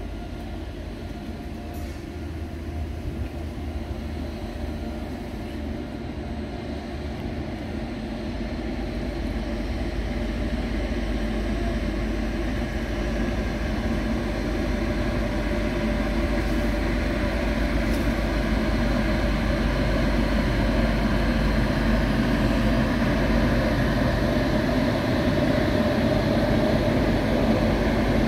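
WAG-9 electric locomotive hauling a loaded freight train of open coal wagons, approaching and passing. It makes a steady rumble of wheels on rail that grows gradually louder as the train draws near.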